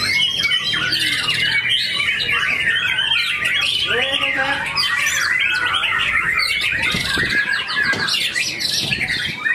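Many caged white-rumped shamas (murai batu) singing at once in contest, a dense mass of overlapping fast whistles, trills and chatter.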